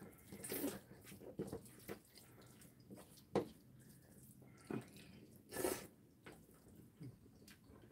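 Faint eating sounds: jjajangmyeon (black-bean-sauce noodles) being slurped and chewed, with several short slurps. A sharp click of a utensil against a bowl about three and a half seconds in is the loudest sound.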